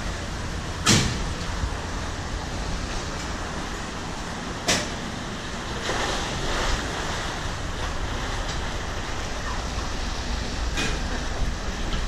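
Rail-mounted bobsled coaster cart rolling along its steel track, a steady rolling noise. Sharp knocks come about a second in and again about five seconds in, with a fainter one near the end.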